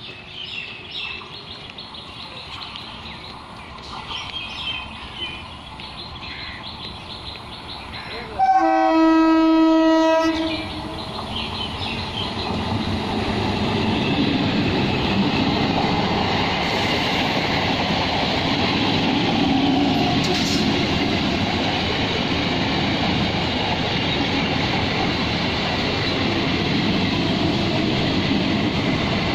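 Electric multiple unit local train sounding its horn once, one steady note lasting about two seconds, about eight seconds in; then its coaches rolling slowly past on the rails with a steady rumble that builds over a few seconds and holds. Birds chirp faintly before the horn.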